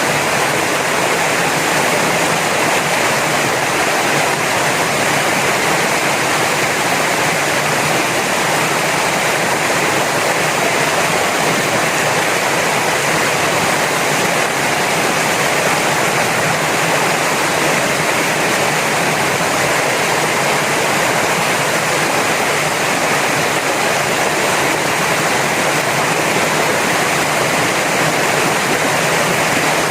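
Waterfall close by: a loud, steady rush of falling and splashing water.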